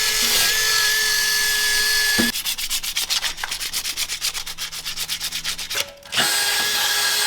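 Metal car parts being scuffed for paint prep. The steady rubbing turns, about two seconds in, into quick back-and-forth strokes several times a second, then goes steady again near the end.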